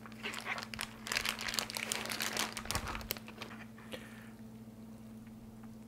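Plastic vacuum-seal bag crinkling and rustling as it is peeled open and a rack of sauced ribs is pulled out, busiest over the first three seconds and then dying away.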